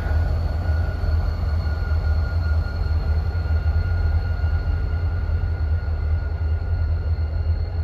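Diesel freight train rolling past close by: a steady, deep rumble that shakes the ground, with a faint steady high tone above it.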